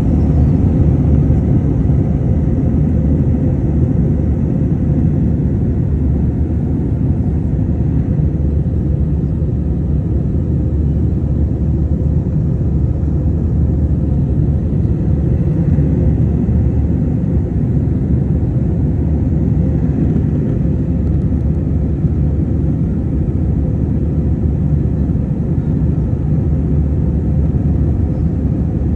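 Steady low rumble of a jet airliner in cruise flight, heard inside the passenger cabin at a window seat.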